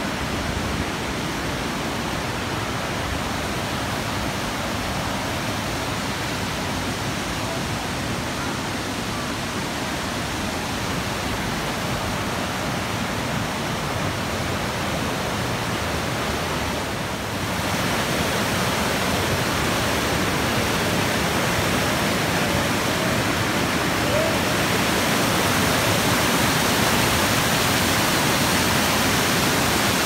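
Steady rush of water over a river's falls and rapids, growing a little louder and brighter about halfway through.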